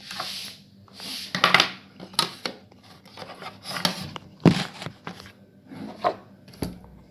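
Tripod being handled and adjusted by hand: a series of rubbing, scraping swishes with sharp clicks and knocks of its parts, the loudest knock about four and a half seconds in.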